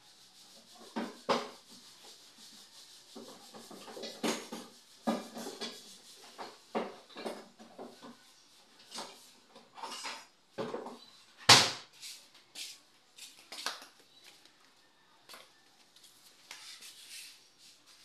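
Irregular clinks, knocks and scrapes of hand tools and door lockset hardware being worked on a wooden door, with one sharp, loud knock about eleven and a half seconds in.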